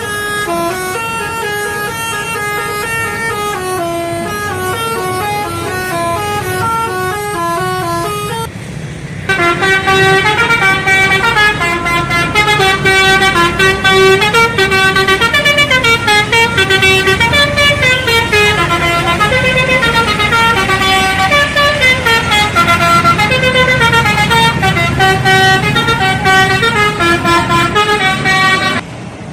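Bus telolet horn, a set of electric air-horn trumpets playing a melody of short stepped notes. About nine seconds in it cuts to a louder telolet tune of quick notes that runs up and down.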